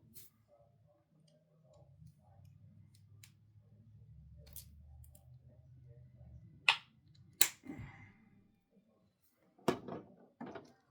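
Plastic action figures being handled: a few sharp clicks and knocks of hard plastic against plastic. The loudest come around seven seconds in, and two more near the end, over a faint low hum.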